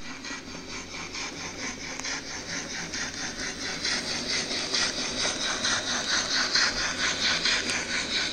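OO gauge model steam locomotive and goods wagons running along the track: a rapid, even rhythmic rattle of about four to five beats a second that grows louder as the train comes near.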